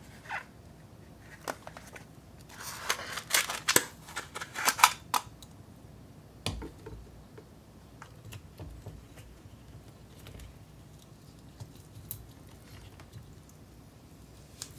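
Frozen ice bottle being worked out of a blue plastic mold: from about two seconds in, a few seconds of sharp crackling and creaking clicks of ice and plastic. Then a single knock as the ice bottle is set down on a glass plate, followed by soft handling ticks.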